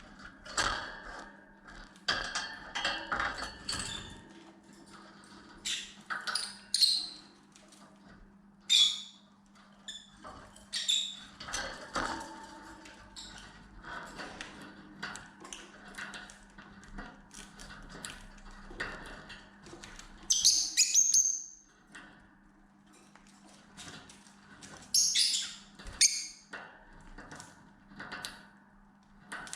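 Pet lovebirds giving short, high chirps and squeaks, with scratchy rustling and clicks between them. The loudest chirps come about twenty seconds in and again about five seconds later.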